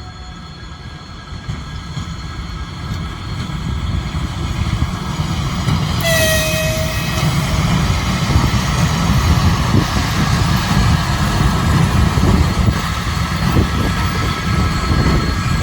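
Train approaching and passing, its low rumble growing steadily louder; about six seconds in it gives one short whistle blast of a bit over a second.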